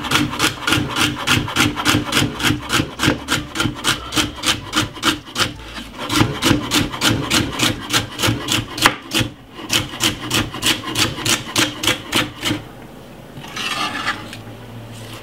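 Kitchen knife slicing a celery stalk on a wooden chopping board: quick, even chopping knocks, about four a second, each cut going through the crisp stalk into the wood. The chopping pauses briefly about nine seconds in and stops about twelve and a half seconds in.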